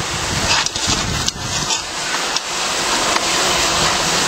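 Raw spot prawns sizzling on a grill grate over a fire: a steady hiss with scattered sharp crackles.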